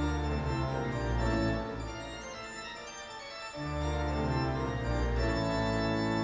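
Background organ music: sustained organ chords over a heavy bass line, the bass dropping out briefly in the middle and then swelling back in.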